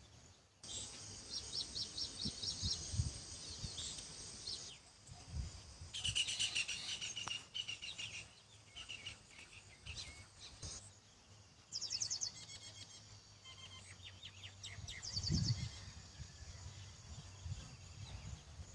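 Small birds chirping in quick repeated trills, over a faint steady hiss of small fish frying in hot oil, with a few low thuds.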